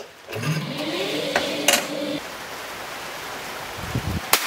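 Electric target carrier of a shooting-range lane running after its button is pressed: a motor whine that rises in pitch, holds steady with a couple of clicks, and stops about two seconds in. A single sharp crack comes near the end.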